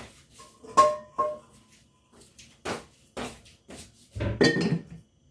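Metal pans clanking as a wok is lifted off a wall hook. Two struck pans ring out clearly about a second in, followed by light knocks and a louder clatter near the end as the wok is handled at the stove.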